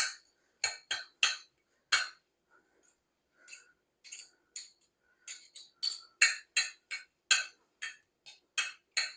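Metal utensils clinking and tapping against a dish in a string of sharp, irregular clicks, faster in the second half, as tender cooked roast beef is shredded.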